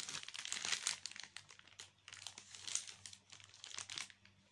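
Plastic wrapping crinkling in irregular bursts as it is handled.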